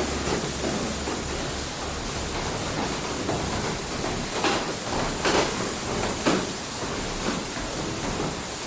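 Inside a working water mill: a steady rush of falling water, with a few irregular knocks and clunks from the mill.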